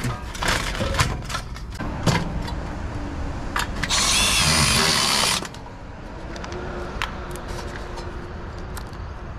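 Cordless Milwaukee drill running for about a second and a half, a few seconds in, driving a screw into a galvanized sheet-metal vent collar. Sharp clicks and knocks of the metal vent parts being handled come before and after it.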